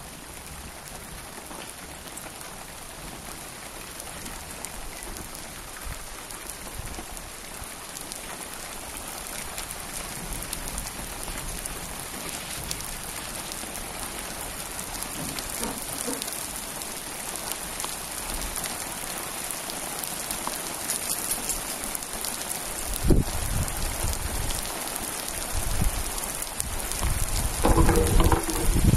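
Steady rain falling on a swimming pool and wet paved terrace, an even hiss that grows gradually louder, with a few low thumps near the end.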